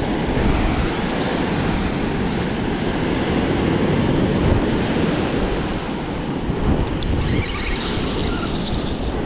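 Ocean surf breaking and washing up the sand around the angler's feet, with wind buffeting the microphone.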